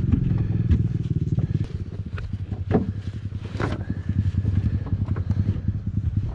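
An engine idling steadily, with a few short knocks and rattles from a ratchet tie-down strap being worked as a dirt bike is strapped into a pickup bed.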